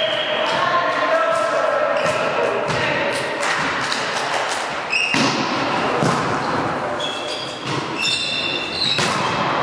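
A volleyball rally in an echoing sports hall: the ball is struck with sharp thuds, one of the sharpest about five seconds in, with short high squeaks near the end and players calling out.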